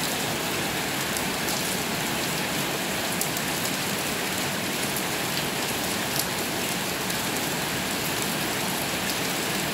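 Steady rain falling on a paved street and roofs: an even hiss with a few scattered drop ticks.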